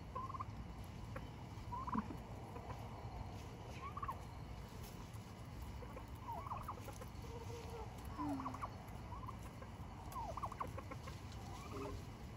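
Domestic turkeys giving short, soft calls every second or two as they feed.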